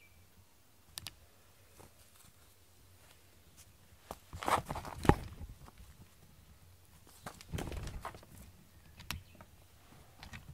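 A cat getting out of a cardboard box and pouncing on a plush toy: a cluster of thumps and scuffles about four to five seconds in, the loudest part, then more scuffling a little later, with a few sharp clicks between.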